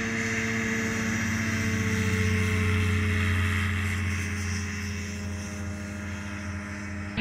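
Bushbaby light aircraft's Rotax 582 two-stroke engine and propeller at take-off power, heard from beside the runway as the plane rolls and lifts off. The steady engine drone swells to its loudest two to three seconds in, then fades as the plane climbs away.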